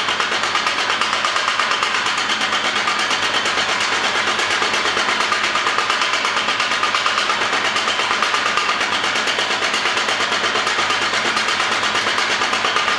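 Homemade power hammer on a trial run, its hammer striking over and over in a fast, even rhythm without a break.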